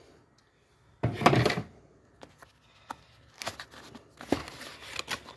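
A cardboard box being opened by hand. There is a short, loud tearing sound about a second in, then small clicks and rustling of cardboard as the lid is lifted.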